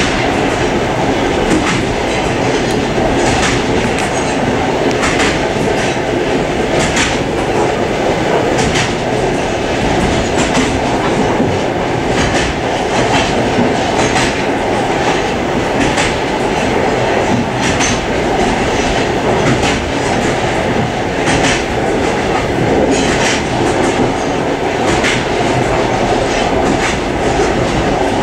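Suburban passenger train running along the line, heard from inside the car's vestibule: a steady rumble of wheels on track, with clacks over rail joints every second or two.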